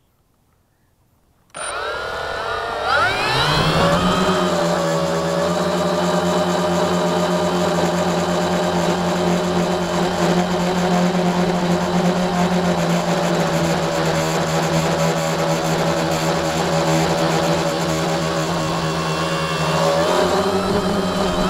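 Tricopter's three electric motors and propellers start up suddenly about a second and a half in and rise in pitch as it lifts off, then settle into a steady whirring hum in flight, heard through its onboard camera. The pitch climbs a little near the end.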